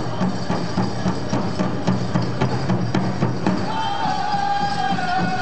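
Powwow music: a large drum beaten in a steady, even beat, with a singer's high held note coming in past halfway and sliding slightly down.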